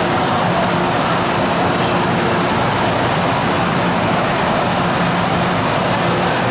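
MTR M-Train metro train standing at an underground platform with its doors open, its onboard equipment running with a steady hum and rush and a faint low tone that comes and goes.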